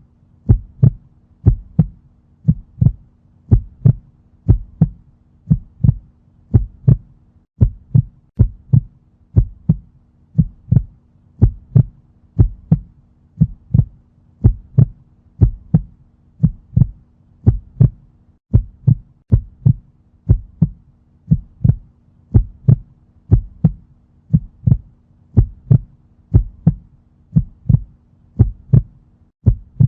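Heartbeat sound effect: a steady lub-dub of paired low thumps, about one beat a second, over a faint low hum.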